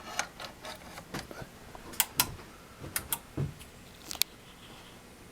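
Samsung HP-T4264 42-inch plasma TV clicking repeatedly as it cycles without ever powering on. This is the fault that set in after two loud pops; the owner cannot find any blown capacitors. The sharp clicks come at uneven intervals, with pairs about 2 and 3 seconds in and another just after 4 seconds.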